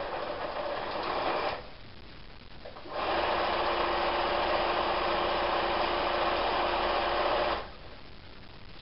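Electric domestic sewing machine stitching fabric in two runs: a short burst that stops about a second and a half in, then a longer steady run from about 3 s that stops near the end, as a seam is sewn on a patchwork block.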